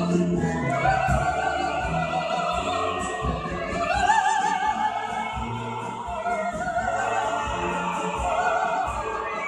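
Operatic singing voice with a wide vibrato over orchestral accompaniment. The voice climbs to a higher held note about four seconds in.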